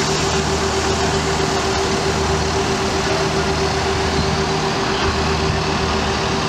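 Police vehicle engine idling: a steady, unchanging hum with a constant mid-pitched tone over it.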